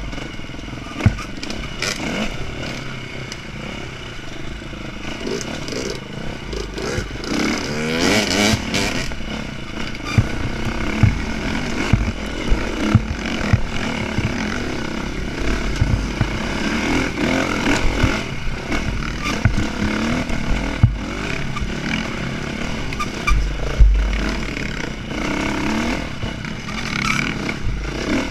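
Dirt bike engine heard from the rider's seat, revving up and down continually as it is ridden hard over a rough trail. Frequent sharp knocks and rattles from the bike bouncing over bumps, with bouts of deep wind rumble on the microphone.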